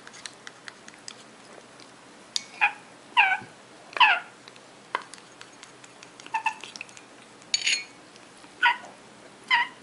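African grey parrot chick giving short begging calls, about seven in quick bursts spread over several seconds, while it is being spoon-fed formula. A few sharp clicks come in the first seconds.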